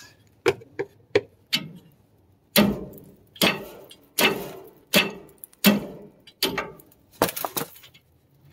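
Hammer blows on a rusted, partly cut-through nut on a leaf spring shackle bolt, knocking off the half of the nut that the cut did not quite separate. A few lighter taps come first, then about eight heavy metallic strikes roughly a second apart, each ringing briefly.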